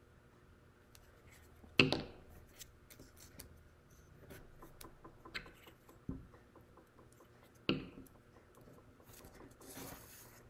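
Quiet handling of a glue stick and small paper pieces on a wooden table, with two sharp clicks, one about two seconds in and one near eight seconds, and a dull knock around six seconds.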